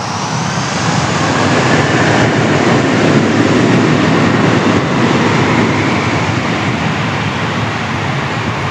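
Jetstar Airbus A320-family jet engines at takeoff power during the takeoff roll: a loud, steady rush with a faint high whine. It swells over the first couple of seconds, then fades slowly as the aircraft accelerates away down the runway.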